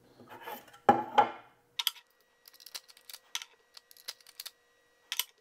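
Light, sharp clicks and clinks of an RCBS hand priming tool and brass rifle cases as primers are seated and the cases are set into a plastic loading block. A brief louder sound comes about a second in, then irregular clicks follow every fraction of a second.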